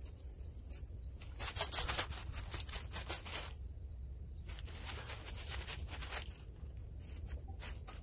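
A thin plastic bag and dry fallen leaves rustling and crackling as a person handles the bag and shifts about on the leaf-strewn ground. The crackle comes in two longer spells with scattered single crunches around them.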